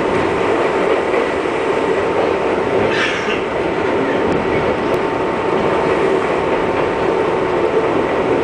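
R62A subway train running at speed on elevated track: a steady rumble of wheels on rail, with a faint steady whine. A short high-pitched scrape comes about three seconds in.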